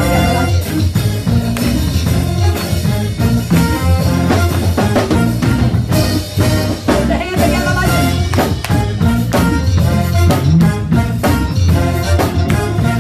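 Upbeat gospel praise music with singing and a steady beat from drums and bass.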